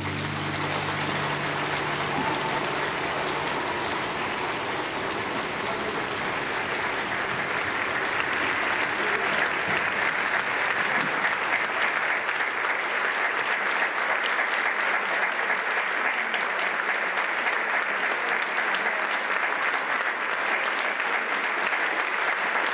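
Audience applauding steadily, the clapping growing a little louder after about eight seconds.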